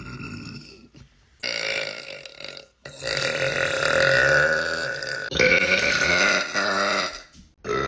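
A woman's long, powerful burps, four in a row with short breaks between them. The longest runs for over two seconds in the middle.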